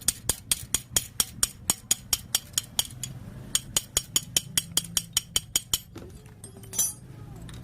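Hand-tool work on a Honda Scoopy engine's top end: a quick, even run of sharp metallic clicks or taps, about four a second, with a short pause partway and stopping about six seconds in, followed by one brief louder scrape of metal.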